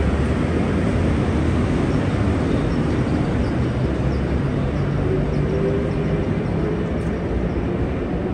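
Double-deck electric suburban train running along the station platform and pulling away, a steady rumble of wheels and motors. A faint whine comes in about five seconds in.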